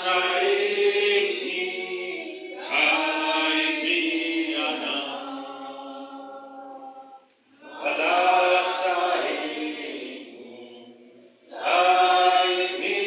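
A group of voices singing a worship chorus together in four long held phrases, each starting loud and fading away.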